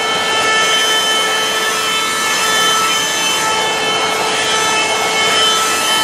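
A 12-volt KOWASIS CHERYLON handheld car vacuum running steadily: a motor whine over a rush of air. Its nozzle rubs across the floor carpet as it sucks up loose styrofoam bits.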